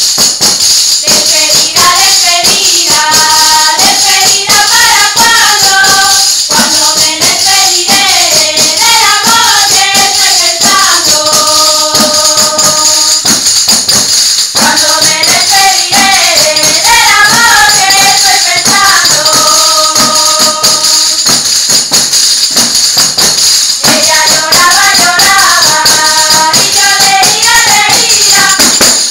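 Panderetas, large hand-beaten frame drums with metal jingles, played in a fast steady rhythm, their jingles ringing throughout, while women's voices sing a folk melody together. The singing comes in three long phrases with short gaps where only the drums carry on.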